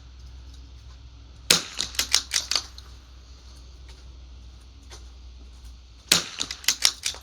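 .22 LR rimfire rifles firing on a benchrest line. A loud crack about a second and a half in is followed by several quieter shots over the next second, then another group of shots near the end.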